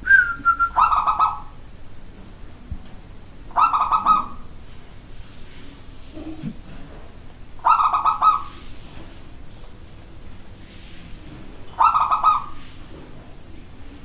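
Zebra dove (perkutut) singing from its cage: four short phrases of rapid, rolling coos, each under a second long and about four seconds apart.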